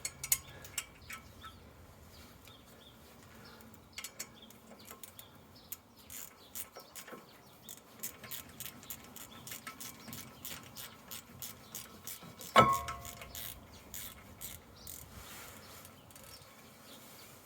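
Light metallic clicks and clinks as a brake disc is handled and fitted onto a car's front wheel hub, with one loud ringing clank about twelve and a half seconds in.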